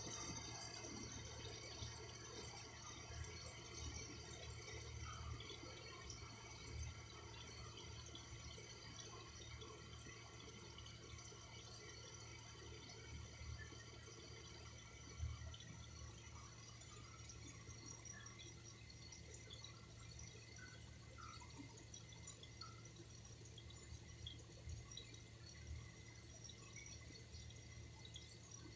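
Faint running water with scattered drips, easing slightly in level over the stretch.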